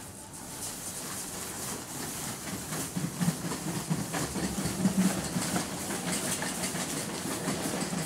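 Metal shopping trolley being pushed and rolling over a tiled supermarket floor, its wheels and basket rattling unevenly, louder from about halfway.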